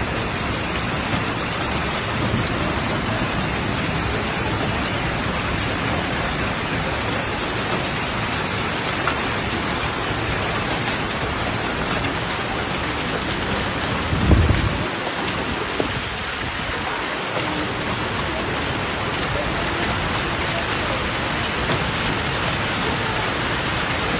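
Heavy rain pouring steadily onto a flooded street, a dense even hiss, with one brief low thump about two-thirds of the way through.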